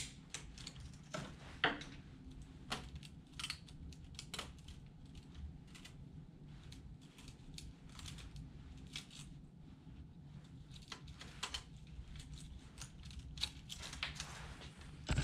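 Irregular small clicks and rattles of plastic wire connectors and cables being worked loose from an HP LaserJet 4250 printer's circuit boards, a flat-blade screwdriver prying at the plugs, over a faint low steady hum.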